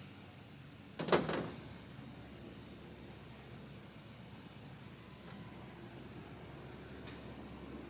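Steady high-pitched chirring of insects such as crickets, with a single sharp knock about a second in.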